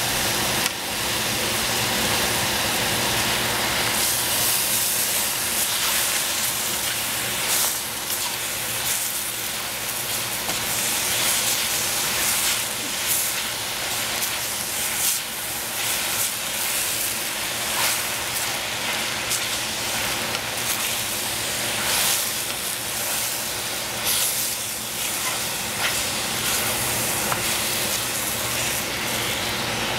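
Cabbage sizzling and steaming in a hot stainless steel saucepan as a steady hiss, with short scrapes and knocks from a wooden spatula stirring it.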